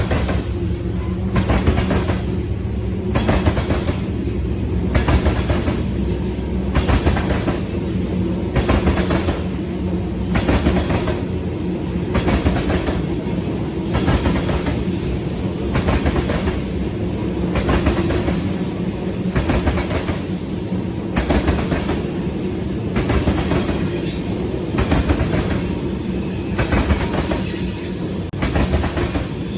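A train rolling past, its wheels clacking over the rail joints in a steady rhythm about once a second over a continuous low rumble and hum.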